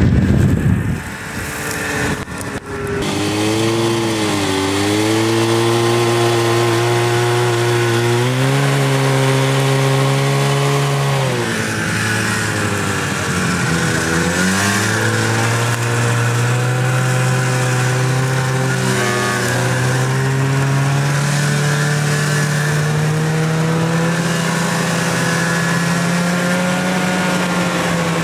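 Snowmobile engine running under way, its pitch dipping and rising with the throttle in the first half, then holding steady and slowly climbing. A loud rush of noise in the first second.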